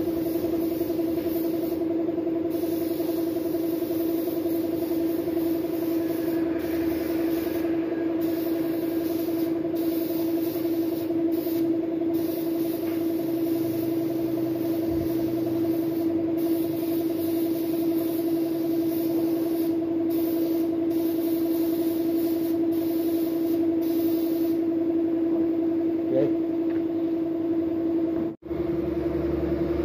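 Gravity-feed paint spray gun hissing in short bursts as the trigger is pulled and released, over the steady hum of an air compressor running. The spraying stops a few seconds before the end while the compressor hum goes on.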